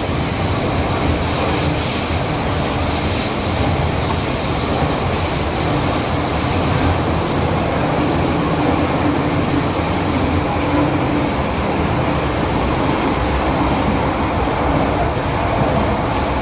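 First-generation MTR M-Train (1979 CM Stock) metro train running along the line: a steady, even rolling rumble of wheels and running gear with a faint hum, and no brake squeal.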